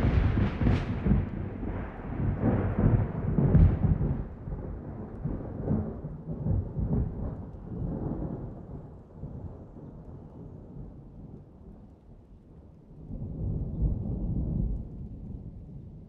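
Low, noisy rumble like distant thunder, loudest in the first few seconds, dying down, then swelling again about 13 seconds in.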